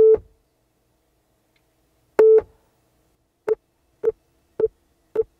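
Loud calibration beeps from a wireless CarPlay adapter, played through the car's audio system for automatic echo-cancellation (Auto AEC) microphone calibration. Six beeps at one mid pitch: two longer ones about two seconds apart, then four short ones about half a second apart.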